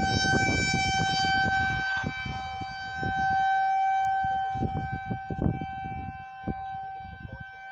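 Outdoor civil defense tornado warning siren sounding a steady, unwavering tone, with an uneven low rumble underneath.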